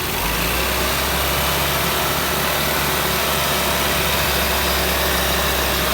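Mitsubishi Lancer engine running steadily at raised revs with the air-conditioning on, with no knocking: the A/C compressor has just been replaced and its knock is gone.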